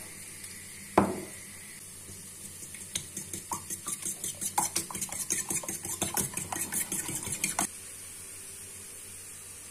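A utensil knocks once against a dish about a second in. A little later it starts stirring quickly in the dish, clinking against the side about five times a second, and stops abruptly near the end.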